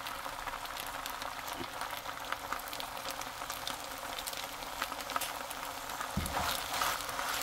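Seaweed stems and onion sizzling in an oiled frying pan: a steady hiss with fine crackles. About six seconds in there is a low knock, and the sizzling grows livelier as a wooden spoon starts stirring.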